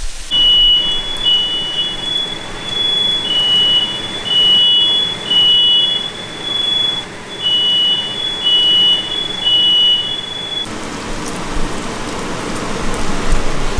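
Smoke alarm beeping in groups of three over a steady higher tone, set off while bacon fries. The beeping cuts off suddenly about ten seconds in. Bacon sizzling in a skillet is heard throughout, and is left on its own after the alarm stops.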